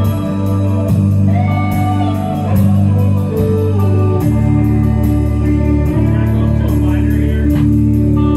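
Live band playing rock on electric guitars and bass guitar, with a steady beat; the bass moves to a new, lower note about four seconds in.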